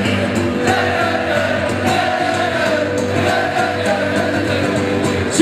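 Live rock band playing with singing over a steady beat, the voices holding long notes.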